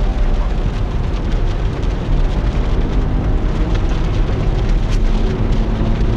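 Car in second gear on a wet road in the rain, heard from inside the cabin: steady engine and tyre noise with rain hitting the car.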